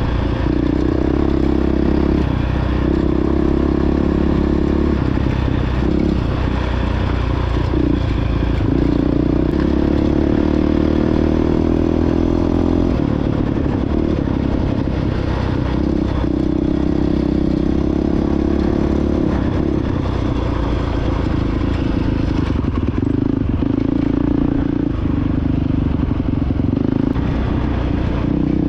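Honda CRF450X's single-cylinder four-stroke engine running as the dirt bike is ridden off-road, the throttle opening and easing off every few seconds.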